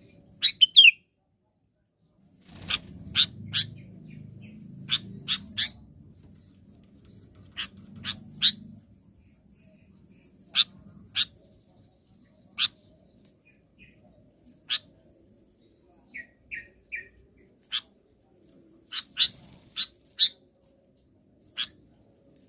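Sooty-headed bulbul giving short, sharp calls at irregular intervals, singly and in quick pairs or triplets, with a softer run of three lower notes about two-thirds of the way through. This is a call that other bulbuls answer and are drawn to.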